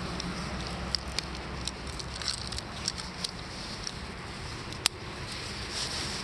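Hand-handling noise of a small bass and a hanging fish scale: scattered small clicks and rustles, with one sharper click about five seconds in.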